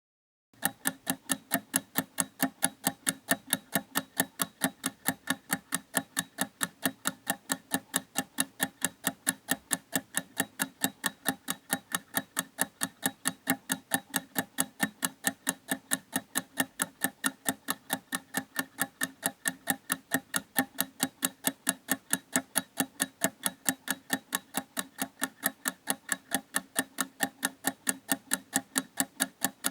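Ticking time-bomb sound effect: a clock-like timer ticking at a fast, even pace, starting about half a second in.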